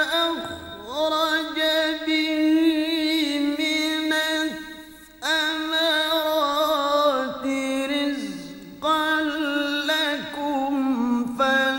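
A male qari reciting the Quran in melodic, chanted style. He holds long notes decorated with wavering turns, and new phrases begin about five and nine seconds in.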